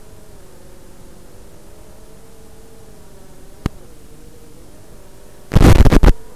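A 6-inch FPV quadcopter's motors whining under a steady hiss, their pitch wavering up and down with throttle. A sharp click a little past the middle, then a loud distorted burst of noise about five and a half seconds in that lasts about half a second.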